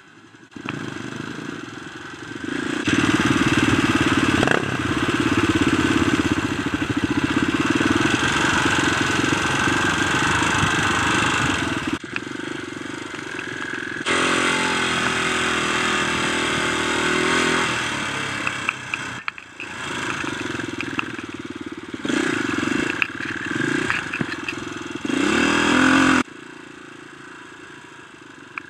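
Dirt bike engine running under throttle while riding a dirt trail, its pitch rising and falling with the throttle and revving up near the end. The sound changes abruptly several times where separate clips are spliced together.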